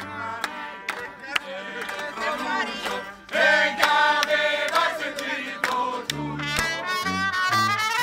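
Live folk band music: a sousaphone playing separate bass notes under trumpet, acoustic guitar and singing. The bass notes come in strongly again about six seconds in.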